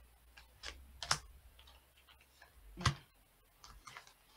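Tarot cards being drawn from the deck and laid down on a table: a few sharp, irregular clicks and taps of card on card and card on tabletop, the loudest near three seconds in.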